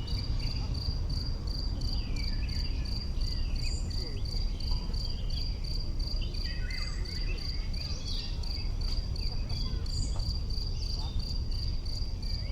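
A singing insect giving a steady, evenly pulsed high trill, about four or five pulses a second, over a low rumble, with scattered short chirps and calls higher up.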